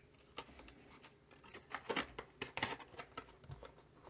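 Hands handling an empty cardboard trading-card box: a scatter of light clicks and scratches of cardboard.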